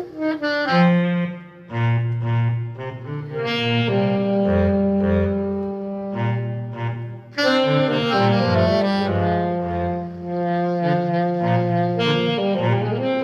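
Saxophone playing a melody in long held notes over a low bass line; the phrase breaks off briefly about seven seconds in and a new one starts.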